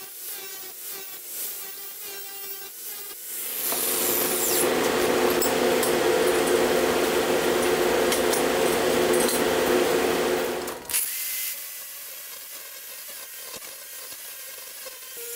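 Electric angle grinder with an abrasive disc grinding rust off a pitted axe head. It starts at a lighter running hum. About three seconds in it gets much louder under load, then drops back near the end.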